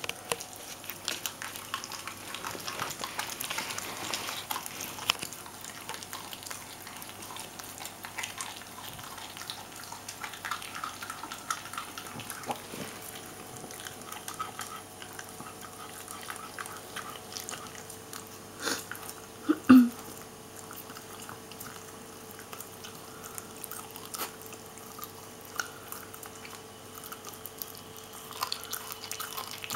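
Jack Russell terrier gnawing and crunching half a raw turkey neck: a steady run of small wet bites and bone crunches, with a couple of louder sharp sounds about two-thirds of the way through.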